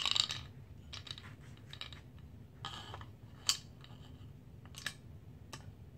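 Handling noise from an AR-15 lower receiver and polymer pistol grip being turned over in the hand: scattered small clicks and rubbing of parts, with one sharper click about three and a half seconds in.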